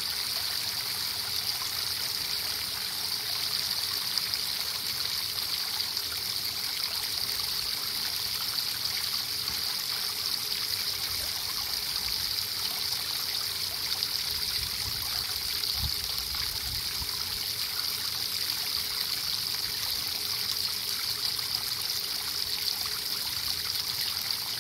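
Garden hose spray head showering water onto a steel hammer head held in tongs and splashing into a bucket of water: a steady, even hiss of spray and churning water. This is a spray quench, hardening the 1045 steel hammer.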